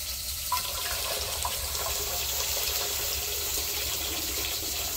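Water poured steadily from a cooking pot into a bowl, a continuous splashing pour that starts about half a second in.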